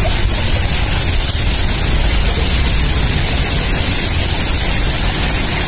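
Steady, loud rushing noise with a low rumble underneath and a hiss on top, unchanging throughout.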